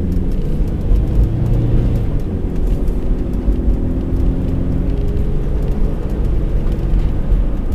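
Motor vehicle running: a steady low engine and road rumble, with an engine hum that drifts slightly in pitch.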